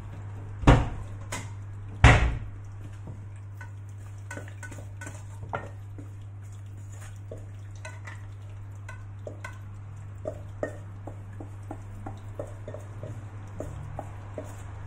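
Stainless steel pot handled on the counter with two loud knocks early on, then a wooden spatula scraping cooked apple and walnut filling out of the pot into a bowl in a run of small clicks and scrapes.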